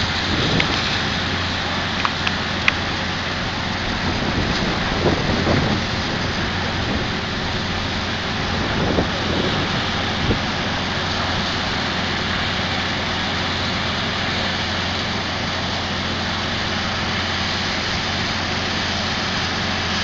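Steady rushing hiss of fire hose streams over the low drone of fire engines pumping, with a few sharp clicks about two seconds in.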